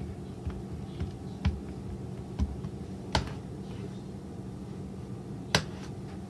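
Scattered sharp clicks and taps from pastry dough and kitchen utensils being handled on a plastic cutting board, about five in all, the loudest about three seconds in and another near the end, over a steady low hum.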